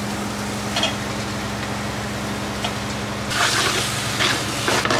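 Steady low hum of the houseboat's engine running under way. From about three seconds in there are several rough scrapes of a metal spoon stirring chicken pieces in an aluminium pot.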